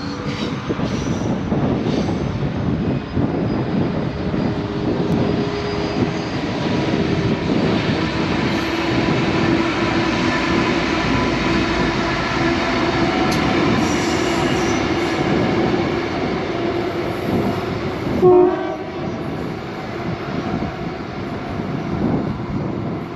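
Two Aurizon narrow-gauge diesel-electric locomotives, 4039 and 2817, running light past, their engines and wheels on the rails making a steady sound throughout. A short, loud horn blast sounds about three-quarters of the way through.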